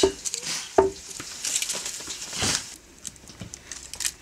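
Dry bay leaves and their plastic packet rustling and crinkling as they are handled, loudest a little before the middle, with two sharp clicks in the first second.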